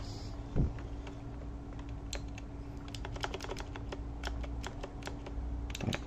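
Akko V2 Blue clicky switches on an Akko DS Horizon V2 mechanical keyboard being pressed, giving a scatter of sharp clicks, sparse at first and more frequent from about two seconds in. A dull thump comes about half a second in.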